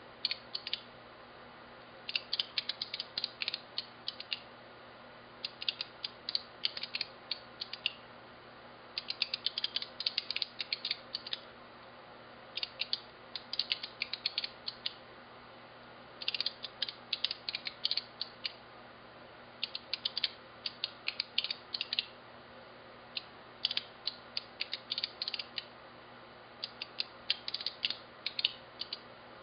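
Signalex electromagnetic flip-segment displays clicking as their segments are flipped one at a time. The clicks come in quick runs of two to three seconds, one run each time the digits change to a new number, with short pauses between runs.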